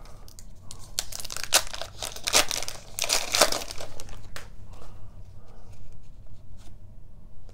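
Foil wrapper of an Upper Deck hockey card pack being torn open and crinkled, loudest in the first half, then quieter light ticks as the stack of cards is handled and thumbed through.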